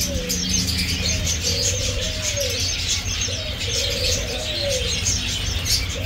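Caged doves cooing, two long low coos about a second and a half each, over the constant high chirping of many caged finches.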